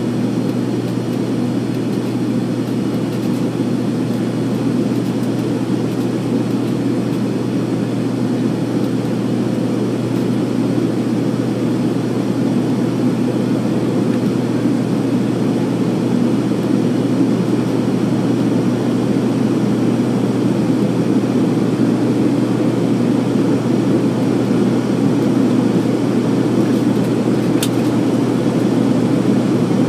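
Steady cabin noise of a regional airliner in its climb after take-off: engine and airflow rumble with a constant low hum, growing slightly louder over the stretch.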